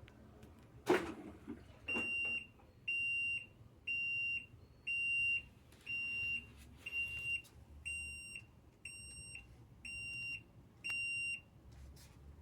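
Electrolux 12 kg washing machine sounding its end-of-cycle signal: ten even high beeps, about one a second, each about half a second long. A single thump comes about a second in, before the beeps start.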